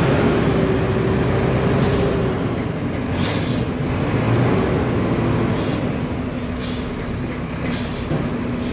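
Mack front-loader garbage truck running with a steady whine from its hydraulics as the front forks handle a dumpster. Five short hisses of air come about a second apart.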